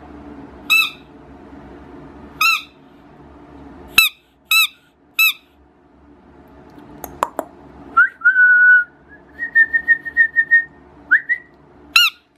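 Rubber squeaky toy squeezed by hand in short, high squeaks, singly at first and then two or three close together. In the middle come a few seconds of longer, steadier high whistling tones, each starting with a rise in pitch.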